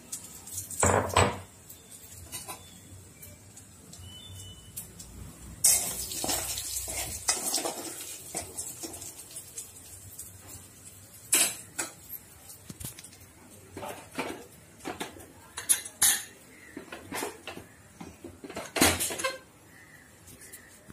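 A steel spoon clinking and scraping against a kadai in irregular knocks, while crushed fennel seeds sizzle in hot oil.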